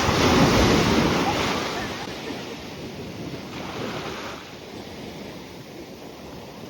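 Sea waves breaking on the shore, with wind buffeting the microphone. A wave surges loudly right at the start and washes out over a couple of seconds, and a smaller one follows about three and a half seconds in.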